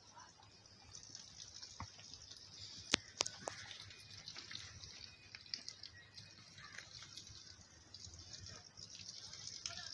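Kid goat suckling at its mother's udder: faint wet sucking and smacking sounds over a steady high hiss, with a few sharp clicks about three seconds in.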